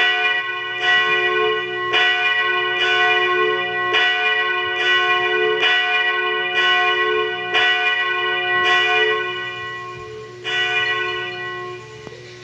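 A single bell rung by its rope, struck about once a second in a steady rhythm. After a short pause near the end comes one last stroke, and the ring dies away.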